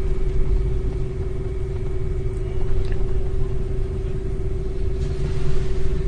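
Cabin noise of a Cruise driverless electric car on the move: steady road and tyre rumble with a constant hum.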